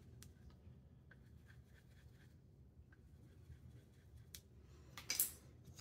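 Pencil tip scratching and ticking faintly against the plastic while screw holes are marked through a light base onto a PVC end cap. A short, louder rustle of handling comes near the end.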